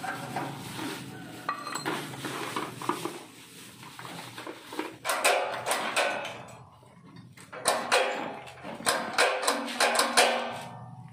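Steel latch parts clinking and knocking against a tubular steel grill frame: a run of sharp metallic clicks and knocks, mostly in the second half.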